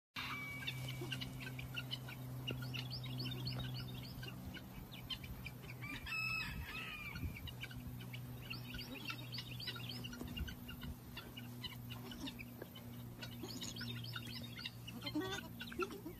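Birds chirping in quick runs of short, high notes, with one louder call about six seconds in, over a steady low hum.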